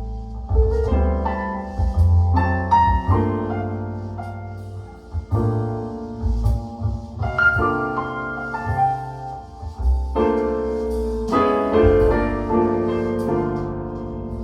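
Piano music with deep, full bass notes, played back over a hi-fi loudspeaker system of Altec Lansing Valencia speakers with subwoofers.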